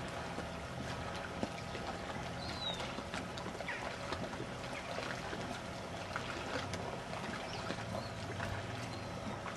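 Quiet lakeside marina ambience: water lapping against the breakwater, with small scattered clicks and a steady low hum underneath.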